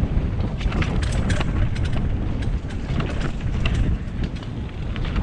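Wind buffeting the microphone on a mountain bike riding down a dirt flow trail, with irregular rattles and clicks from the bike and tyres over rough ground.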